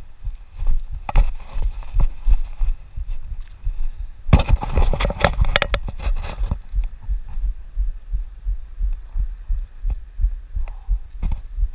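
Mountain bike riding over a dirt singletrack, heard through a bike-mounted action camera: irregular low thuds and rumble from the bumps and wind on the microphone, with a burst of rattling and clattering from about four to seven seconds in.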